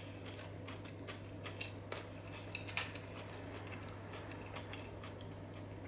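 Irregular light clicks and ticks of a metal fork against a glass plate while picking at a salad, the loudest a little under three seconds in.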